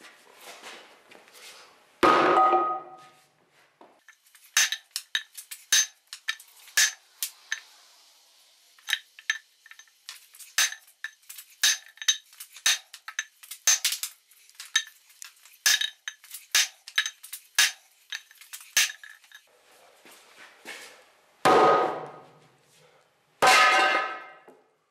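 Sledgehammer blows on a wooden block laid across a steel tractor wheel centre, each one leaving the rim ringing. A heavy blow comes about two seconds in, then a long run of lighter, sharp metallic taps about one to two a second, and two more heavy blows near the end. The blows are driving the wheel centre out of its clamped, corroded eccentric mounts until it breaks free.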